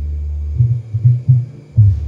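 Music played only through a subwoofer fed from the sub output of an Ashley XR204 crossover. Only deep bass notes and a pulsing low beat come through, with nothing in the mid or high range.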